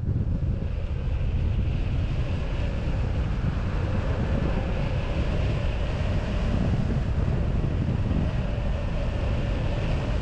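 Wind rushing over the microphone of a hang glider in flight: steady buffeting wind noise, with a faint steady whistle through the middle.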